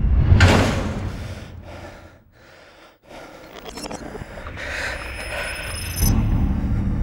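Film sound design: a loud whoosh about half a second in that falls away and fades to near quiet, then a rising rush with faint high steady tones swelling back up, and a low rumble coming in suddenly about six seconds in.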